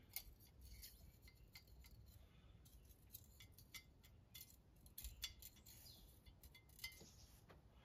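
Faint, scattered metallic ticks and clinks of a steel feeler gauge blade against a straight edge laid across the engine block deck, being tried for a gap while checking the block for warp. A few ticks are a little sharper about five seconds in and near the end.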